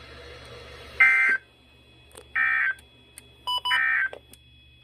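Emergency Alert System SAME data bursts: three short, identical raspy digital squawks about a second and a half apart. This is the end-of-message code that closes the severe thunderstorm warning.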